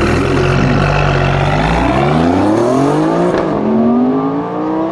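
Alfa Romeo Giulia Quadrifoglio's 2.9-litre twin-turbo V6, breathing through a Ragazzon exhaust, launching at full throttle alongside an Audi R8 Spyder in a drag race start. The engines hold a steady note on the line, then climb in pitch. They drop once at an upshift about three seconds in, then climb again as the cars pull away.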